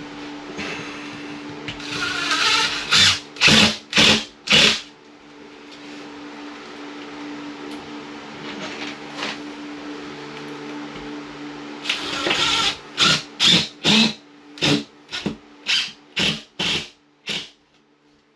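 Rhythmic back-and-forth strokes of a hand tool scraping or cutting a drywall panel, about two strokes a second, in two runs: one a couple of seconds in, and a longer one in the second half. A steady low hum runs underneath.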